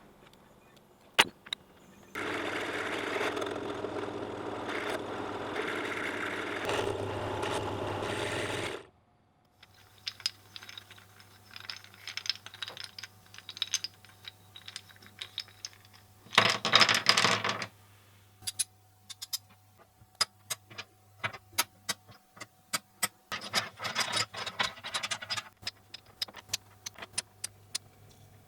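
Electric drill boring and countersinking holes in small oak clips: one run of about six seconds, then two shorter runs. Between the runs come many small clicks and clatters of the wooden pieces being handled.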